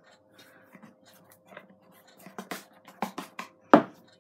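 Wooden craft stick stirring fluffy slime in a plastic tub as activator is worked in: irregular scrapes and knocks of the stick against the tub, the sharpest about three and a half seconds in, over a faint steady hum.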